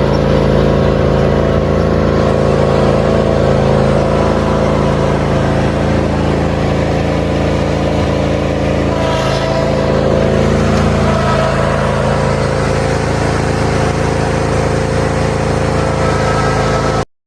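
A vehicle engine running steadily for about seventeen seconds, starting suddenly and cutting off abruptly near the end.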